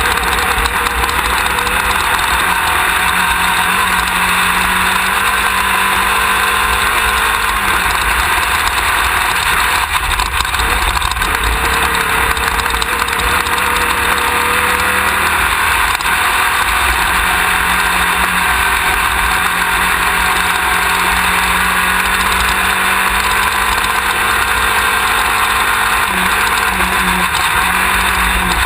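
Class 1600 off-road race buggy's air-cooled VW engine running steadily at speed, heard from on board under a constant wash of wind and rough-terrain noise. Its pitch wavers a little but never drops away.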